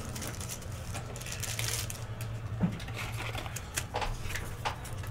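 A pack of trading cards being opened and the cards handled: scattered crinkles and small clicks, over a low steady hum.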